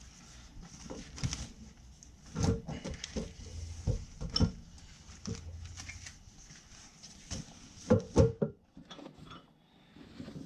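Handling noise as rolled pouches of steel punches and cold chisels are moved and set down: irregular knocks and clinks with rustling, loudest about two and a half, four and a half and eight seconds in.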